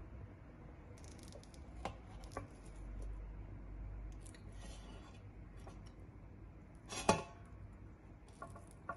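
A steel fork poking boiled chicken pieces, its tines clinking and scraping on a steel plate in scattered sharp clicks and short scratches. The loudest clink comes about seven seconds in.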